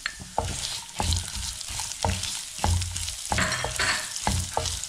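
Sliced onions sizzling in hot oil in a nonstick pan, stirred with a spatula that scrapes and knocks against the pan. The sizzling grows louder about a second in as the stirring starts.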